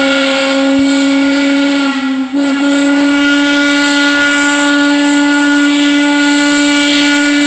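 Steam whistle of the steam locomotive BDZ 46.03 blowing a long, steady, loud low note over a hiss of steam. The note breaks briefly a little over two seconds in, then sounds again and stops near the end.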